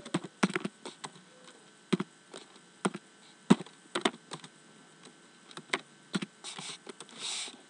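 Computer keyboard keystrokes and clicks while numbers are typed into a form: single sharp taps, irregularly spaced about half a second to a second apart, with a couple of short soft hisses near the end.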